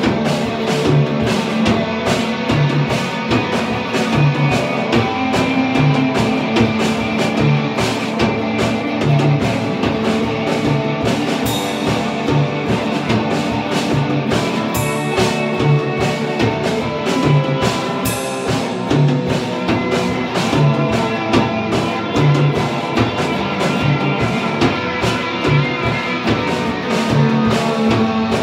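Live instrumental punk and industrial-metal hybrid played on two electric guitars and a Gretsch drum kit, with dense sustained guitar over a steady drum beat.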